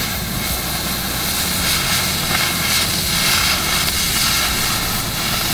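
Oxy-acetylene cutting torch blowing its jet of cutting oxygen through steel: a steady ripping and snorting roar. The sound is the sign of a good cut.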